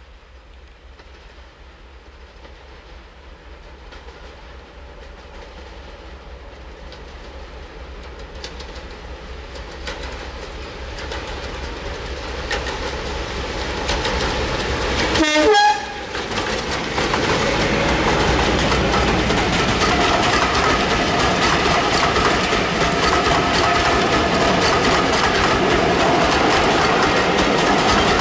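British Rail Class 52 'Western' diesel-hydraulic locomotive D1062 'Western Courier', with twin Maybach V12 engines, approaching under power and growing steadily louder. A brief loud burst comes about halfway through, then the locomotive and its coaches pass close with wheels clattering over the rail joints.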